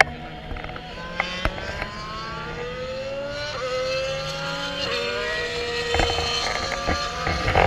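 Racing engines on the circuit accelerating through the gears, their pitch climbing steadily and dropping back at each upshift, with a couple of sharp clicks about a second in.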